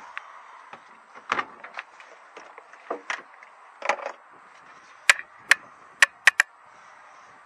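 Handling noise around a scrapped car's door and stripped interior: scattered sharp clicks and knocks, with five loud sharp clicks close together in the second half, over a steady hiss.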